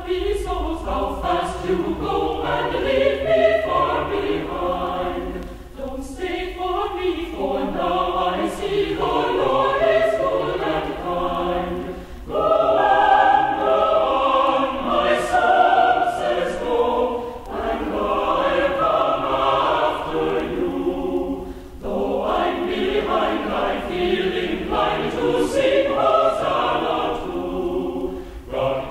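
Mixed choir singing an early American folk hymn in several phrases, with brief breaks between phrases about every five or six seconds. Faint clicks show through the singing.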